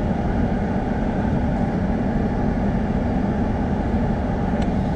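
Steady in-cabin noise of a stationary 2019 Lexus ES350: the climate-control fan blowing, with the 3.5-litre V6 idling beneath it.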